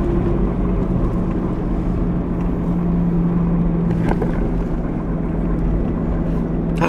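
Steady engine and road drone of a Mitsubishi Pajero, heard from inside the cabin while driving.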